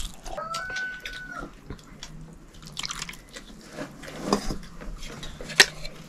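Scattered clinks and taps of metal plates and spoons with soft eating sounds, two sharper clicks near the end, and a short high whistling tone about half a second in.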